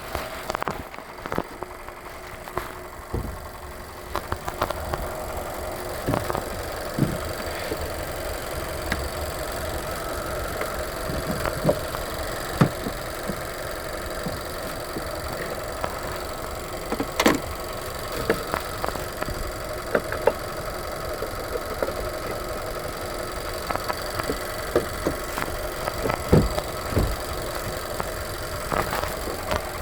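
2020 Nissan Sentra's four-cylinder engine idling steadily, left running during a battery swap, with scattered sharp clicks and taps throughout.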